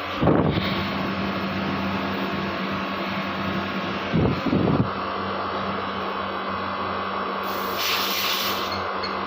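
Window air conditioner running with its newly fitted Coolpad compressor: a steady hum under the blower's airflow. A bump just after the start, two more around four seconds in, and a brief hiss near eight seconds.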